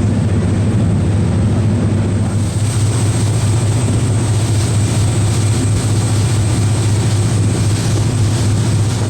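Strong wind buffeting the microphone over the steady low drone of a fast catamaran's engines under way, heading into the wind.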